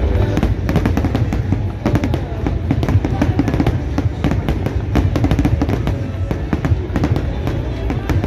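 Fireworks finale barrage: many sharp bangs and crackles, several a second, over a steady low rumble of shells bursting, with music playing along.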